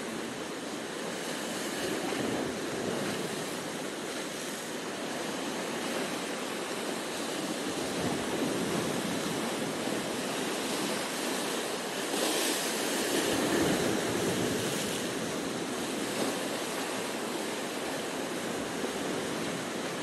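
Sea surf breaking and washing over rocks, a steady rush of water that swells and eases, with a louder crash of a wave about twelve seconds in.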